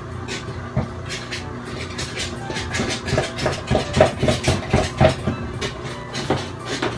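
A spoon stirring a thick glaze of powdered sugar and cream cheese in a plastic measuring jug, clacking and scraping against its sides. The strokes speed up to about five a second for a couple of seconds midway, the loudest part.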